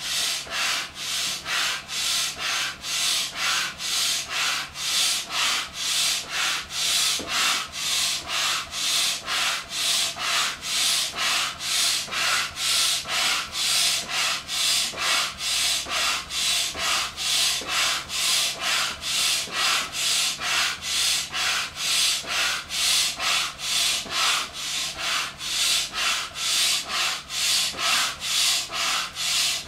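Hand-operated stroke air pump worked steadily, each stroke a rush of air hissing through the hose into a deflated blue vinyl inflatable whale, about two strokes a second.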